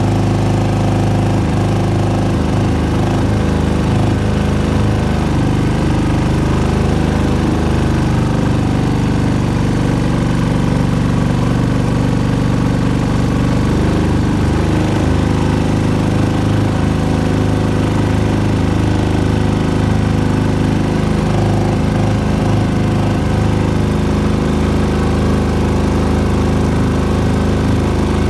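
Single-cylinder 6.5 hp Predator engine on a Four Rivers Mini mud motor, running steadily under way as it pushes a small boat across shallow floodwater.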